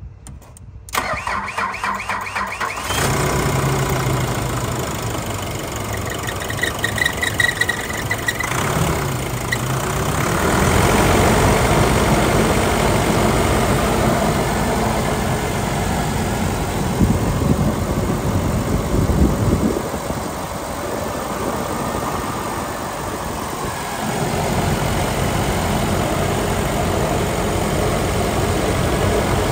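2.5-litre four-cylinder turbo diesel engine of a 2013 Nissan Navara cranking on the starter for about two seconds, catching, then idling steadily.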